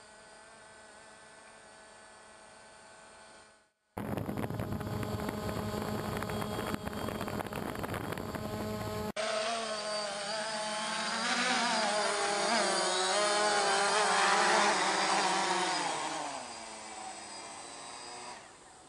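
DJI Phantom quadcopter's motors and propellers buzzing. The sound is faint at first and then loud after an edit. Its several pitches waver as the drone is flown close, then fall and fade near the end as it comes down onto the ground.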